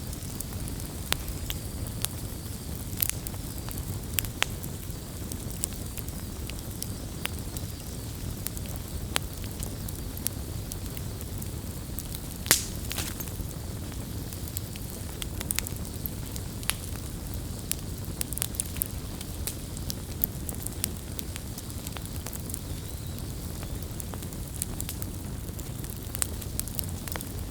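Wood campfire burning, with a steady low rumble of the flames and irregular sharp crackles and pops throughout. The loudest pop comes about twelve seconds in.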